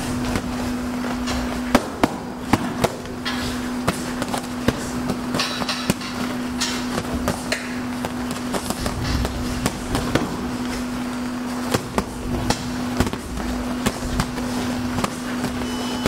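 Boxing gloves landing in quick, irregular thuds and slaps on gloves, headgear and body during sparring, over a steady low hum.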